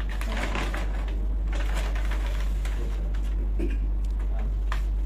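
Paper rustling and crackling in short, irregular scrapes as sheets and booklets are handled near the table microphones, over a steady low hum.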